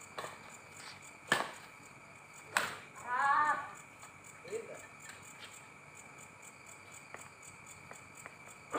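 Badminton rally: a racket strikes the shuttlecock twice, about a second and a quarter apart, then a player gives a short shout.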